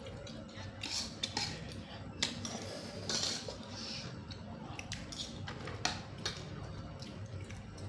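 Irregular clicks and clinks of blood cockle shells and utensils against a dish as the cockles are pried open and eaten.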